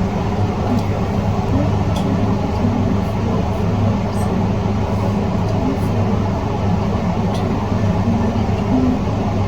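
Steady low hum with a noisy hiss from running machinery, unchanging throughout, with a few faint soft sounds over it.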